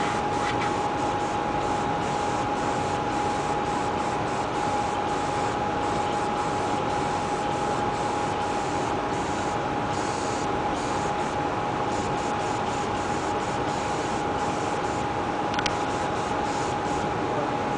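Airbrush hissing as it sprays paint, the upper hiss cutting in and out in short bursts as the trigger is worked. Under it runs a steady noise with a constant thin whine.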